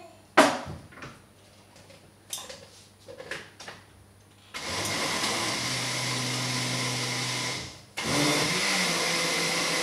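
A few knocks and clatters, then an electric blender motor runs for about three seconds, stops briefly, and starts again, mixing a protein shake.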